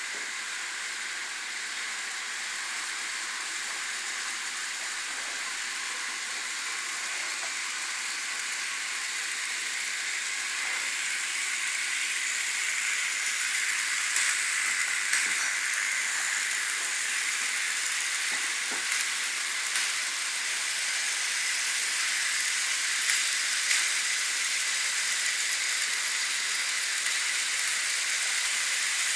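N scale model freight train running along its track: a steady high whirring hiss from the locomotive's motor and the wheels on the rails, growing louder as the train draws near and passes, with a few light clicks in the second half.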